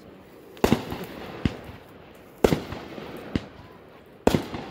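Aerial fireworks going off in a steady sequence: three loud bangs about two seconds apart, each trailing off briefly and each followed by a softer, sharper report a little under a second later.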